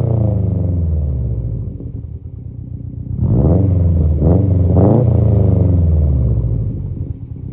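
2017 Subaru STI's turbocharged 2.5-litre flat-four, heard through a Nameless Performance track pipe exhaust. Revs drop back to idle, then three quick throttle blips come about three seconds in, and the engine settles back to idle near the end.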